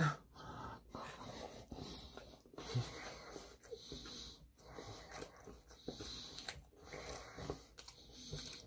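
A person chewing a mouthful of sushi, in short irregular spells.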